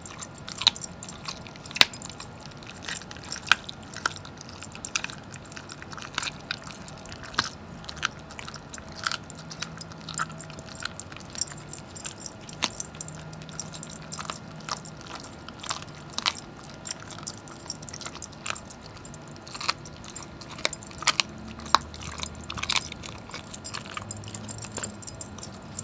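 Greyhound chewing a raw turkey leg, with irregular sharp crunches and cracks from its teeth on the meat and bone, while the metal tags on its collar jingle.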